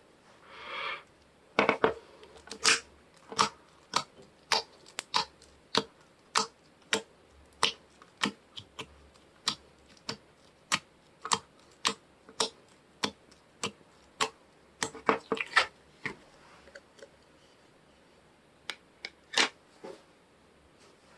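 Soft slime being pressed and stretched by hand, giving a fairly regular run of sharp popping clicks, about one every half second to second, with a quicker cluster of pops about three quarters of the way through.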